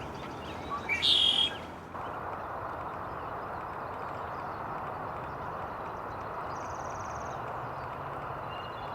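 A short, loud, high bird call about a second in, followed by a steady rushing background noise, with a faint quick run of high ticks near the middle.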